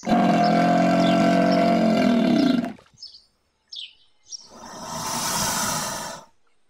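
Crocodile calling: one long pitched growl of about two and a half seconds, then a few short bird chirps and a breathy hiss that swells and fades about four and a half seconds in.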